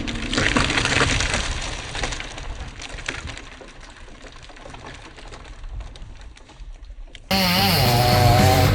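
Rustling, crackling noise with scattered sharp snaps, loudest in the first few seconds and then fading. Loud music cuts in abruptly near the end.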